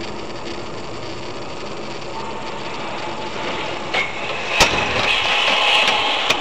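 Car engine and road noise heard from inside a moving car through a dashcam, steady at first and growing louder and hissier in the second half. A few sharp clicks or knocks sound from about four seconds in.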